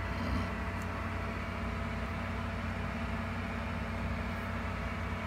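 Steady electric hum and whir of a small motor running without change, typical of an egg incubator's circulation fan.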